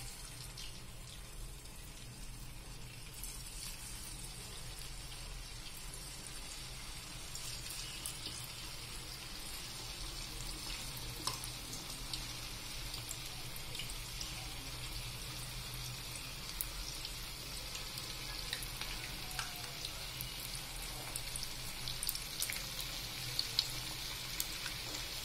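Flour-coated baby corn pieces deep-frying in hot oil: a steady sizzle with scattered small crackles, growing a little stronger after a few seconds.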